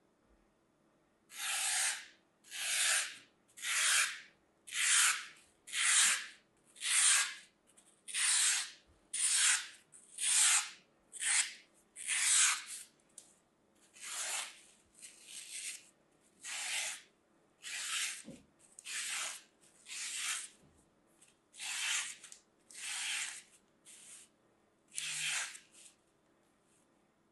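Dry green floral foam being scraped and scored in short repeated strokes, a scratchy rasp about once a second, starting about a second in.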